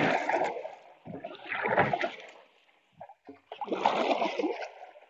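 Paddle strokes splashing and churning pond water, three strokes spaced a bit under two seconds apart, as a plastic-bladed paddle pulls a small boat around in a turn.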